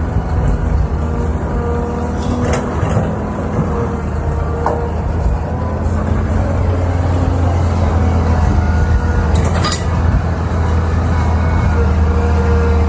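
Tracked hydraulic excavator's diesel engine running under load with a hydraulic whine as it empties its bucket, swings back and digs. There are sharp knocks about two and a half seconds in and again near ten seconds.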